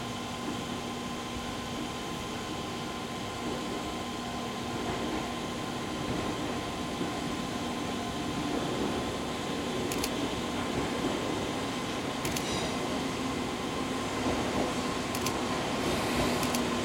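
Choshi Electric Railway 1000 series electric railcar (ex-Eidan 2000 series) approaching on curved track, its running noise growing steadily louder as it nears, with a few sharp clicks in the second half.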